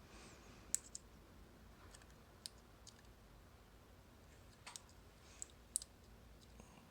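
A few scattered light clicks and taps of a Mul-T-Lock cam lock and its small metal parts being handled, with near silence between them.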